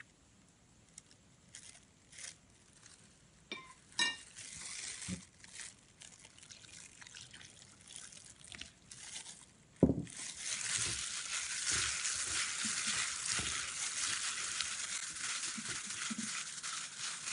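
A cup clinks against a ceramic plate, then water is poured from it onto sliced banana flower, a faint hiss. About ten seconds in there is a sharp knock, then a steady crackling hiss as a hand in a plastic glove rubs and squeezes the wet slices.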